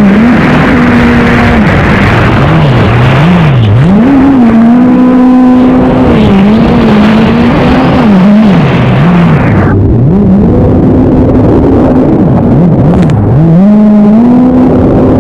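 An engine whose pitch rises and falls again and again, with long holds at its highest note, over heavy noise that cuts back sharply about ten seconds in.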